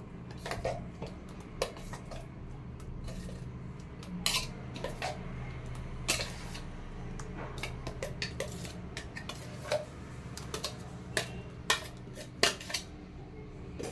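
A metal spoon clinking and scraping against a steel basin and a stainless steel mixer-grinder jar while paste is scooped out, in scattered irregular clicks, over a steady low hum.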